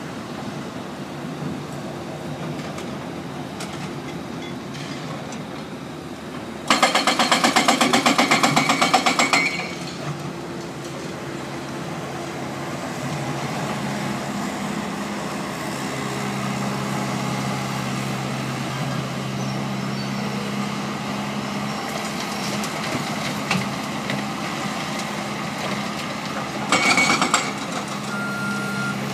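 Heavy demolition machinery with diesel engines running steadily. About seven seconds in, a burst of rapid, even hammering lasts about three seconds, and a shorter burst comes near the end. A reversing alarm starts beeping just before the end.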